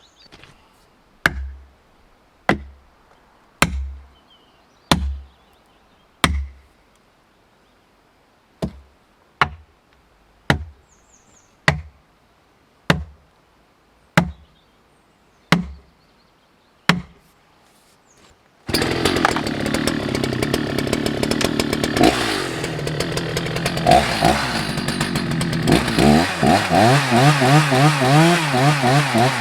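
About thirteen heavy blows on wood, roughly one a second, each with a short ring. Then a Husqvarna 181 SE two-stroke chainsaw comes in running and cutting, its engine pitch wavering up and down under load.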